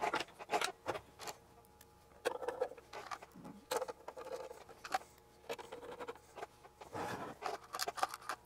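Plastic and sheet-metal oscilloscope case being handled and fitted back together by hand: scattered light clicks, taps and scraping rustles at irregular intervals.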